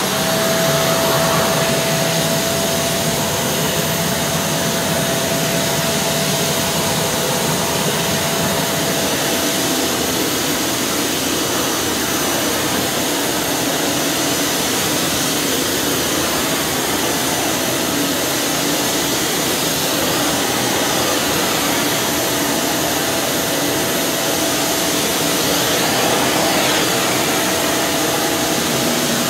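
Kärcher WD 5.400 wet-and-dry vacuum cleaner running steadily: a constant rush of air with a thin, steady whine over it.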